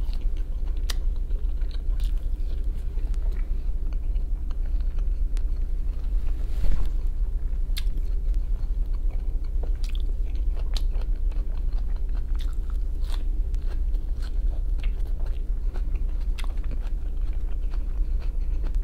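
Close-miked chewing and biting of pan-fried capelin eaten by hand, a run of wet mouth clicks and small crunches, over a steady low hum. A brief louder noise comes about six and a half seconds in.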